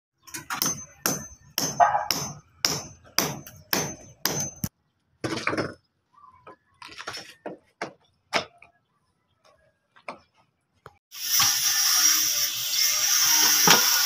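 A run of sharp, evenly spaced strikes, about two a second, some with a high ringing edge. After a pause come a few scattered knocks, then a steady hissy background noise starts near the end.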